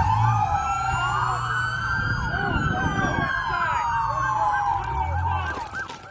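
Several police car sirens sounding at once: slow rising and falling wails overlapping with a faster yelping siren. They fade away near the end.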